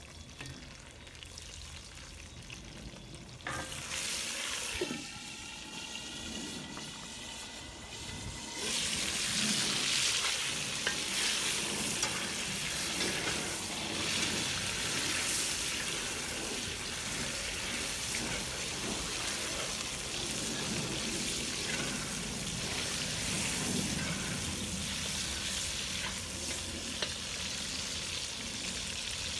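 Oil sizzling in a cast-iron wok as scallions and ginger fry, then a much louder, steady sizzle from about eight seconds in as tofu goes into the hot oil and is pushed around with a spatula.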